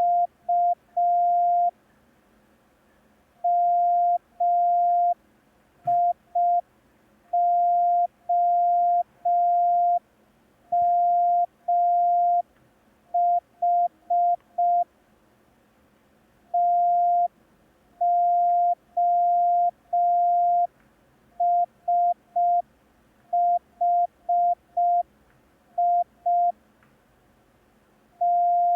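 Morse code practice tone at one steady pitch, keyed in dots and dashes with longer silences between letter groups: a slow replay of a receiving exercise for copying on paper.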